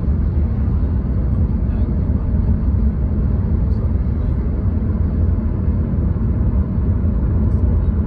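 Steady low rumble of a vehicle travelling at road speed, heard from inside the cabin: tyre and road noise with engine drone.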